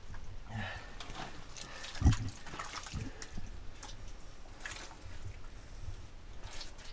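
Mud and water squelching and sloshing with scuffs as a person crawls through a muddy tunnel, with one heavy thump about two seconds in.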